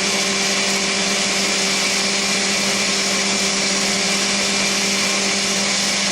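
Countertop blender running steadily at speed three, blending sliced mangoes, milk and ice into juice: an even motor hum over a steady whirring hiss.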